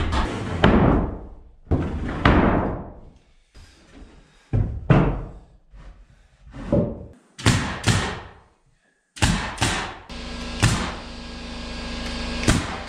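Nail gun firing nails into wall-framing lumber: several sharp shots, mostly in the second half, mixed with heavier wooden thuds and knocks. A steady hum runs under the last few seconds.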